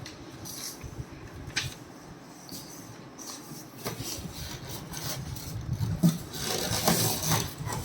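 Rustling and rubbing of packaging and paper being handled, with scattered light knocks; it grows louder near the end.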